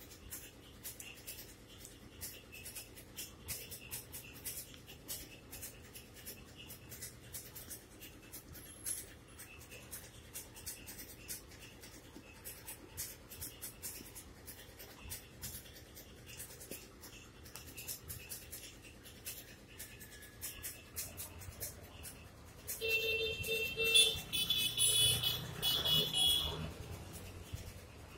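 Faint crackling and ticking, then near the end a vehicle passes with a low rumble and gives several short honks of its horn.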